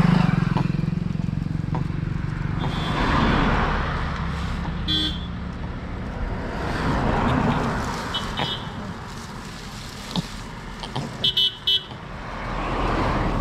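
Road traffic passing: vehicles swelling up and fading away a few times, with short car horn toots, three quick ones near the end.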